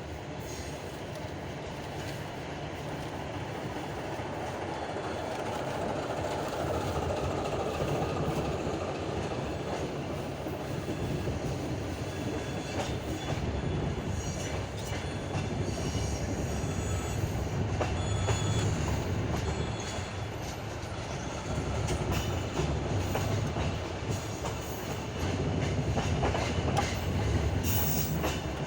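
Passenger railway carriage wheels rolling over the track as the train pulls out and gathers speed: a steady rumble that slowly grows louder, with wheel clacks over rail joints and points coming in about halfway through and brief high wheel squeals.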